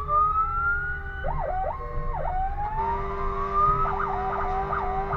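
Fire engine siren running in slow rising sweeps that fall back abruptly, broken by fast up-and-down warbles, with a steady lower tone joining about halfway through and the truck's engine rumbling underneath.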